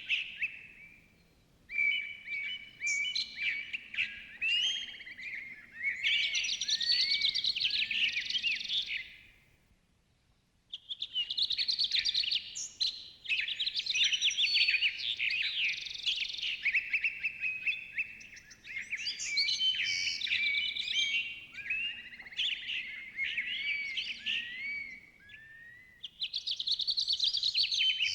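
Forest birds singing and chirping in a dense chorus of overlapping high, warbling songs. It fades out to near silence about ten seconds in and cuts back in abruptly a second later.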